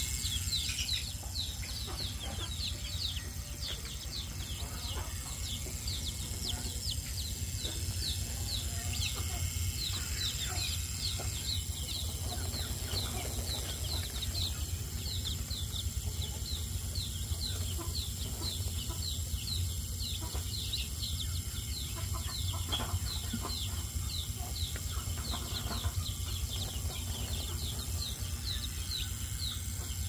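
Newly hatched chicken chicks peeping without pause: a dense run of short, high, falling peeps, several a second, over a steady low hum.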